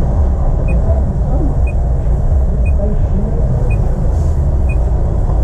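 Car engine idling, heard inside the cabin as a steady low rumble, with the turn-signal indicator ticking about once a second while the car waits to pull into traffic.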